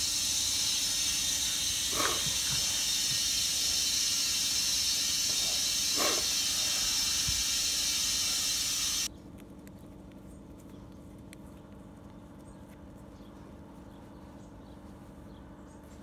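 Compressed air hissing through an air-hose chuck on a tractor front tire's valve stem as the tire is inflated. The hiss cuts off suddenly about nine seconds in.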